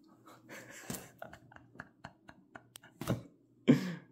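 Cardboard box being opened and handled: short clicks, scrapes and rustles of the flaps and packing, with a brief voice sound a bit over three and a half seconds in.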